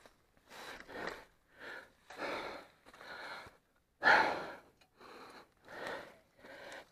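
A person breathing hard and fast: about eight loud, noisy breaths in and out, the loudest about four seconds in, the heavy panting of a motocross rider winded by exertion.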